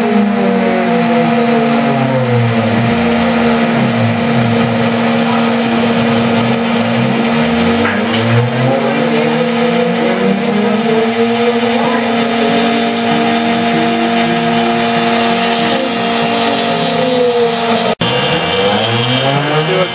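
Hitachi router spindle on a home-built CNC machine running steadily while a quarter-inch end mill cuts the outline profile through wood, with the stepper motors' whine rising and falling in pitch over and over as the axes trace the curve. The sound breaks off for an instant near the end, then resumes.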